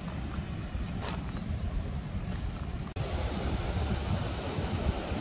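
Steady rush of water spilling over a low-head dam, mixed with wind on the microphone. About three seconds in the sound breaks off for an instant and comes back louder and fuller. A few faint, short high chirps sound in the first part.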